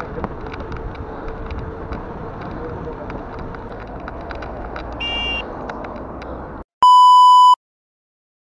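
Bicycle riding noise from an action camera on the bike: wind on the microphone and tyre rumble with scattered rattling clicks, and a short high ringing tone about five seconds in. The ride sound cuts off abruptly, and a loud, steady, beep-like 1 kHz bleep tone sounds for under a second.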